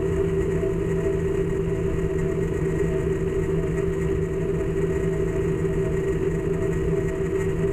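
Steady low rumble with a constant two-tone hum in the background of an air traffic control radio recording, between transmissions.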